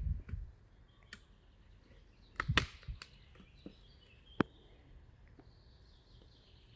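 A few scattered sharp knocks and clicks from objects being handled, the loudest about two and a half seconds in and again a couple of seconds later, over faint outdoor background.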